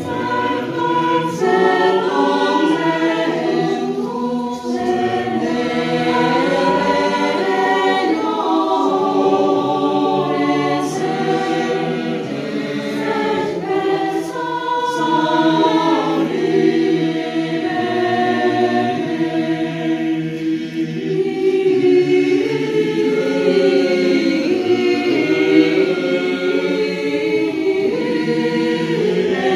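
Mixed choir of women's and men's voices singing a cappella in several parts, holding chords that shift from note to note without a break.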